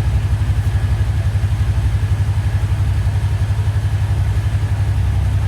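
2019 Kawasaki Teryx 800 side-by-side's V-twin engine idling steadily with an even, low pulsing rumble, running good just after an oil change and refill.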